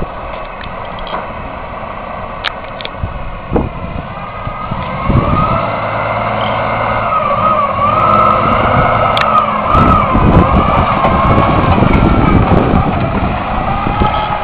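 A Kenworth log truck's diesel engine running as the truck moves, with a wavering whine over it. The sound gets louder from about five seconds in and the whine fades near the end.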